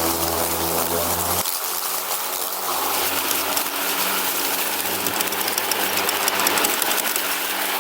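Riding lawn mower engine running steadily under a broad rushing noise; the engine note changes about a second and a half in, when its deep hum drops away.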